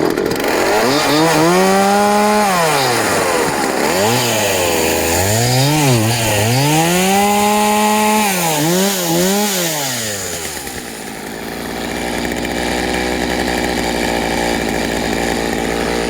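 Poulan Pro 18-inch two-stroke chainsaw starting up and being revved repeatedly: two longer revs held for a second or so, with several quick blips between them. It drops back to a steady idle about eleven seconds in.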